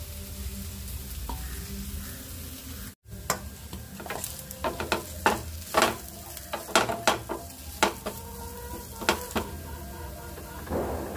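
Sliced onions and mustard seeds frying in oil in a pan, stirred with a wooden spatula: sharp crackles and pops in quick, irregular succession. They begin after an abrupt cut about three seconds in, over a steady low hum.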